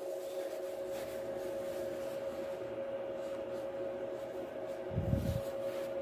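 Steady machine hum holding two fixed tones, with a single soft low thump about five seconds in.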